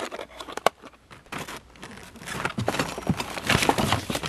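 Rustling and clicking of packaging and small parts being handled, a string of irregular crinkles and light knocks that gets busier about halfway through.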